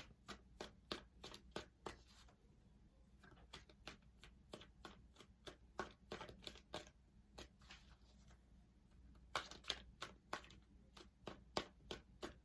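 Tarot deck being shuffled by hand: a quiet, irregular run of soft card flicks and slaps, thinning out twice for a second or two.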